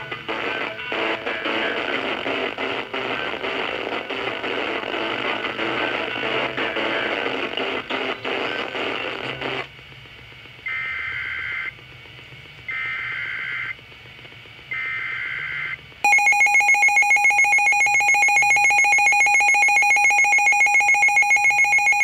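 Station music cuts off about ten seconds in. Three one-second bursts of Emergency Alert System (SAME) header data tones follow, then the loud, steady two-tone EAS attention signal, which announces the start of a new alert broadcast.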